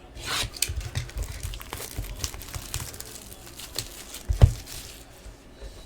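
Plastic wrapping crinkling and tearing as a sealed hobby box of trading cards is opened by hand, with a dull thump about four and a half seconds in.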